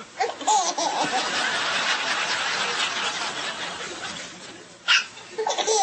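People laughing, then a single sharp hiccup about five seconds in, after which the laughter picks up again.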